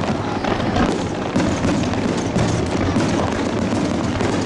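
Aerial fireworks display: many shells bursting one after another, their booms and crackle overlapping into a loud, continuous din.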